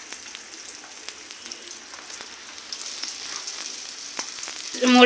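Chopped onion sizzling and crackling in hot oil in a karahi, a steady hiss with scattered small pops.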